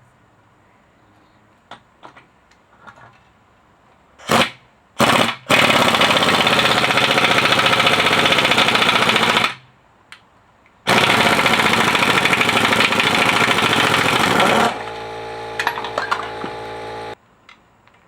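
Hammering power tool on brake caliper work. Two short blips, then two loud runs of about four seconds each with a pause between. A quieter, steadier run of a couple of seconds follows before it stops.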